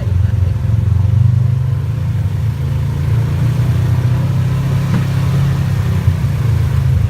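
ATV engine running steadily under way, a constant low drone with no clear rise or fall.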